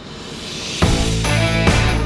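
Background rock music: a swell building up, then the full band comes in hard a little under a second in, with guitars and a steady drum beat.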